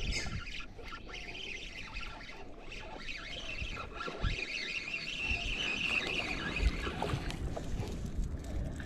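Spinning fishing reel being cranked steadily to retrieve a lure, its sound growing stronger for a few seconds midway.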